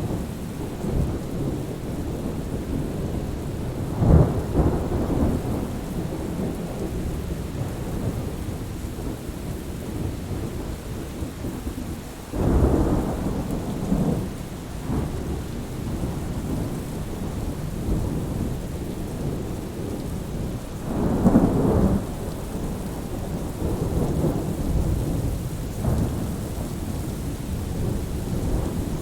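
Thunderstorm: steady rain under a continuous low rumble of thunder, with three louder rolls swelling up about four seconds in, suddenly about twelve seconds in, and again around twenty-one seconds.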